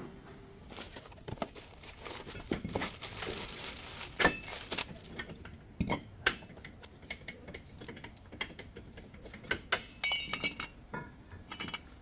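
Metal hand tools and parts clinking and knocking at irregular intervals, with the sharpest knocks about four and six seconds in and a run of ringing metallic clinks near the end, as work goes on at a vehicle's front wheel hub.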